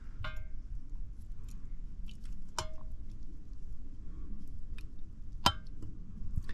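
Baked beans being tipped from a tin can into a ceramic mug, the thick beans slopping out slowly while the tin knocks against the mug about three times in sharp clinks, the first two leaving a brief ringing note from the mug.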